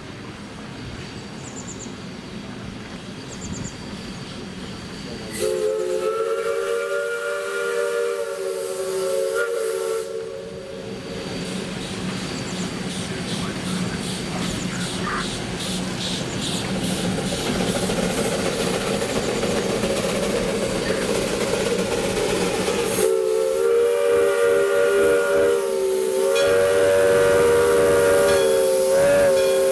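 Steam locomotive's chime whistle blowing two long blasts, one about five seconds long starting a few seconds in and another starting about three quarters of the way through, with a hiss and running rumble between them that grows louder.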